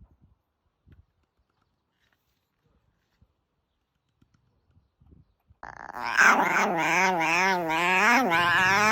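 Near silence with a few faint clicks, then after about five and a half seconds a dog starts a loud, long howl whose pitch wobbles up and down.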